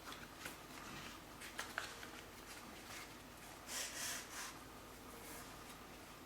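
Faint handling noises: light clicks and soft rustles, with a few brief airy swells about four seconds in.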